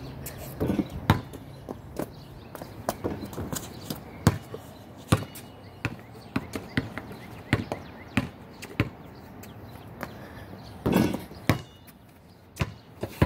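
A basketball being shot and bouncing: a string of irregular sharp thuds, with a longer, rougher hit about eleven seconds in.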